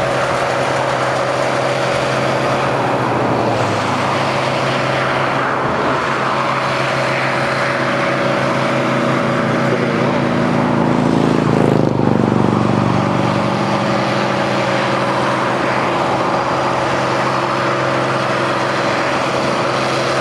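Engine hum and road noise from inside a moving car: a steady drone over tyre and wind rush, with the engine note shifting and the sound swelling louder briefly about twelve seconds in.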